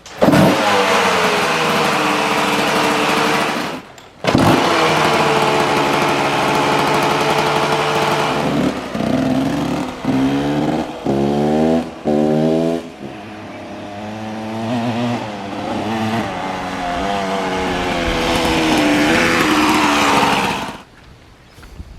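KTM 200 two-stroke dirt bike engine with a freshly rebuilt top end, starting up and revving, then ridden hard with four quick rising pulls in pitch in the middle. It runs steadier, climbs once more and cuts off suddenly near the end.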